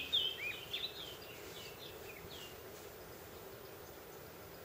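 Small songbirds chirping outdoors: a run of short, high, downward-sliding chirps, busiest in the first second and a half and then fainter and sparser, over a faint steady outdoor hiss.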